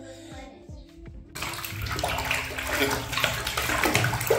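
Background music that cuts off abruptly about a second in, followed by steady running water, with a voice faintly heard now and then.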